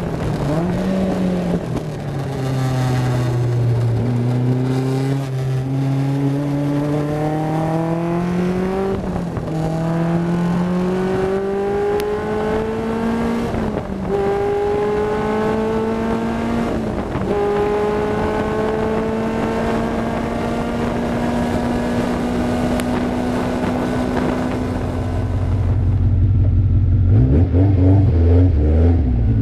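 Caterham Super Seven JPE's 2-litre Vauxhall four-cylinder race engine heard from the cockpit, accelerating hard through the gears. Its pitch climbs and drops back at each upshift several times, then holds steady at high revs, with wind noise over the car. About three seconds before the end it gives way to a deeper, lumpier low-speed engine sound.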